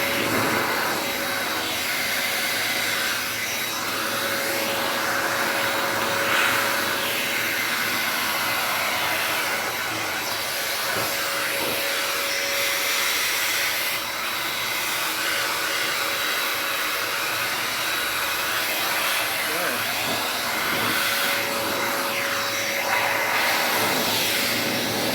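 VO.TEMM 4-in-1 vacuum cleaner running steadily, a continuous rush of air with a steady whine, as its brush nozzle is worked over a dusty ceiling.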